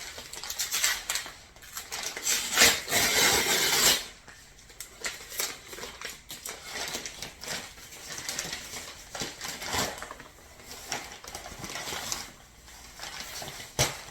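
A parcel being opened by hand: packaging rustling, with scattered clicks and taps, and a louder stretch of rustling about two and a half to four seconds in.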